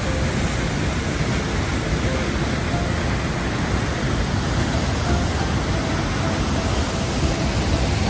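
Göngumannafoss waterfall pouring into its pool close by: a steady, loud roar of rushing water.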